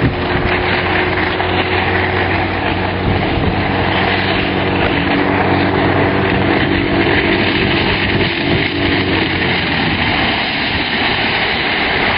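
Yamaha 50 hp outboard motor running at a steady speed as the boat cruises, a steady engine drone over a broad rushing noise; the drone fades about nine seconds in.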